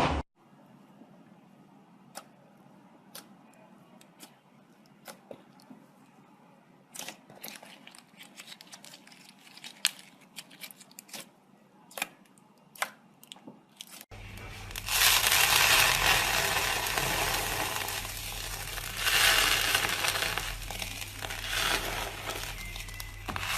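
Slime being worked by hand. For the first half, faint scattered clicks and small pops. About halfway through, louder continuous crackling and squishing begins.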